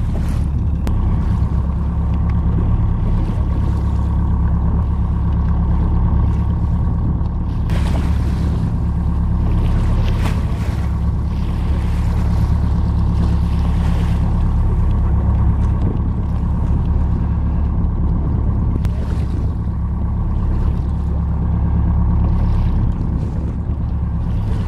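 Whale-watching tour boat's engine running with a steady low drone, heard from on board, with gusts of wind on the microphone now and then.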